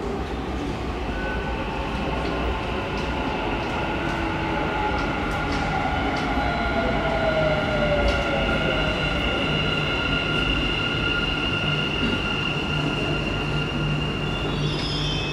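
Dubai Metro train pulling into the station and braking to a stop. Its drive whines down in pitch as it slows, over steady high-pitched tones, and it settles into a low hum once stopped.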